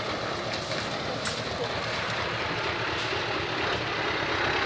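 Scania R580's V8 diesel engine running steadily with an even, pulsing low beat as the truck moves slowly.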